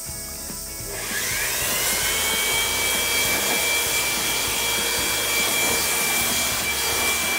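Handheld blower starting up about a second in, its whine rising in pitch and then holding steady over a loud rush of air as it blows sawdust off the wood.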